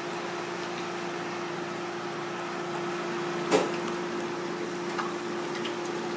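Hot oil in a deep fryer sizzling and bubbling as battered pieces are dropped in, over a steady machine hum. A single sharp knock about three and a half seconds in, with a fainter one a little later.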